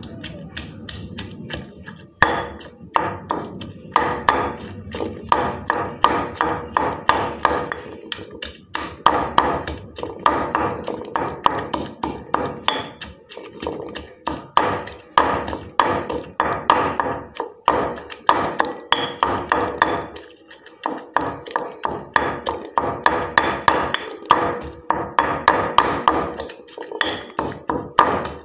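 Pestle pounding grilled eggplant, chilies and shallots in a granite mortar: rhythmic strikes, about three a second, in runs broken by brief pauses.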